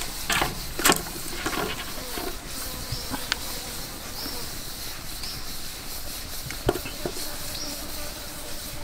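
Woven rattan steaming rack dropped into a large metal stockpot of water, rustling and knocking against the pot twice in the first second. A single sharp knock comes later as a ceramic bowl is set down on the rack. A short, high, rising chirp repeats about once a second in the background.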